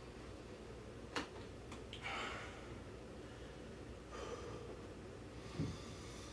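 A man breathing hard after an exercise set, with two heavy breaths out about two seconds apart. A sharp click comes about a second in and a soft thump near the end.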